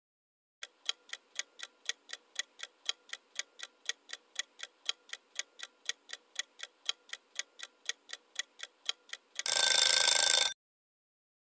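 Countdown timer sound effect: a clock ticking evenly about four times a second for roughly nine seconds, then a short alarm ring of about a second signalling that the answer time is up.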